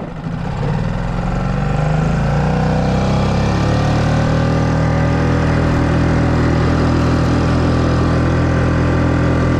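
Honda 5 hp four-stroke outboard motor on an inflatable skiff throttling up: its pitch climbs over the first few seconds, then it runs steady at speed.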